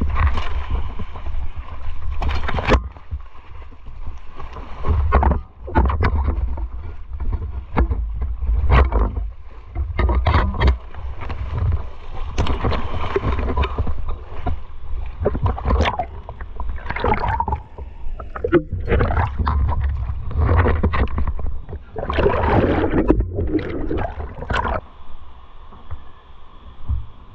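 River water splashing and sloshing in irregular bursts as someone moves through it, over a steady low rumble. The splashing dies down near the end.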